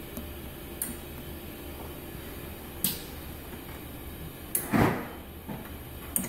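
Hands working the front-panel controls of a Valleylab electrosurgical generator and Force Argon II unit: a few scattered sharp clicks and one louder knock near the middle, over a steady low hum.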